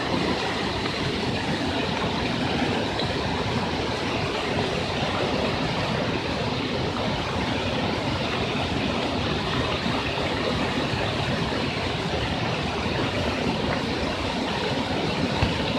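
Flash-flood water rushing down a street: a steady, even rush of fast-moving muddy water.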